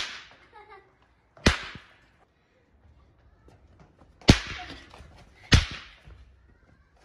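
Pop bangers, thrown-down firecracker substitutes, slammed onto the pavement and going off with four sharp, loud bangs: one right at the start, one about a second and a half in, one just past four seconds, and one about five and a half seconds in.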